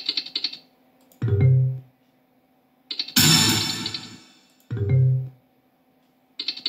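Funky Chicken video slot sound effects: a quick run of electronic clicks as the reels spin, then a short low tone as they stop. A louder, noisier effect comes about three seconds in, followed by another short low tone, and the rapid clicking starts again near the end as the next spin begins.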